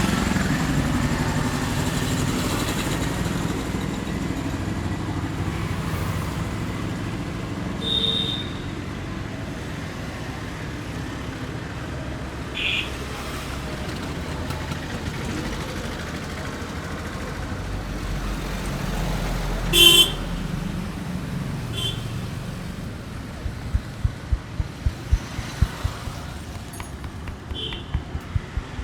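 Steady street traffic noise with several short vehicle horn toots, one of them much louder than the rest. In the last few seconds a run of sharp, regular taps comes in, about two to three a second.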